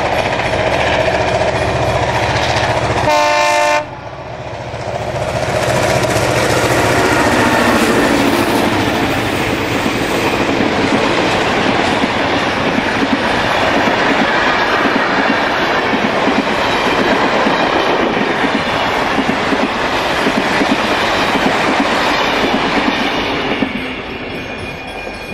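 Diesel-hauled passenger train of stainless-steel sleeping cars: the locomotive sounds a short horn blast about three seconds in. The train then runs past with a long, steady rolling noise from the engines and carriages, which fades near the end.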